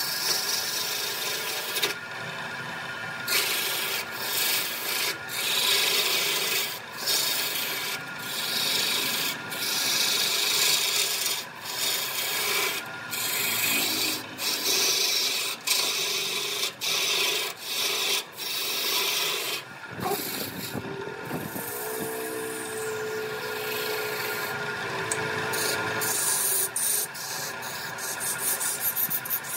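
Wood-turning tool cutting into a wooden blank spinning on a lathe: a rough scraping hiss as shavings peel off, broken by brief gaps when the tool lifts. A faint steady hum runs underneath, and in the second half a steadier whine sounds for several seconds.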